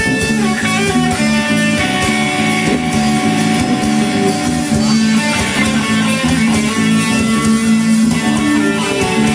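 A band playing at a sound check, led by guitar, with sustained chords over a steady bass line.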